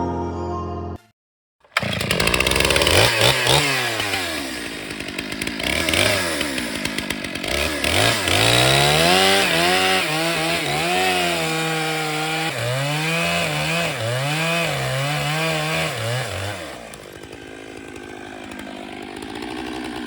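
Stihl MS 881 chainsaw running hard, its engine speed rising and falling over and over. Near the end it drops to a quieter, lower running.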